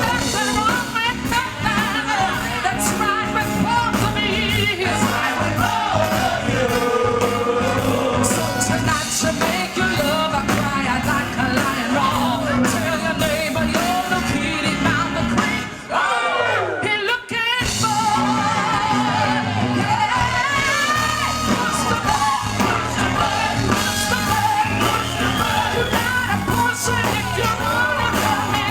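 Live stage performance of an up-tempo musical number: singers holding and bending long wordless vocal lines over a band. The music drops out briefly a little past the middle, then comes back in.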